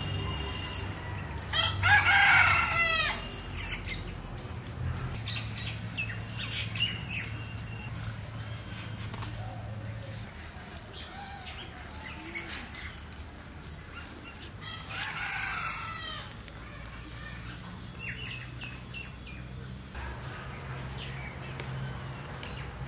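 A rooster crowing twice, once about two seconds in, the louder crow, and again about fifteen seconds in, with small bird chirps in between.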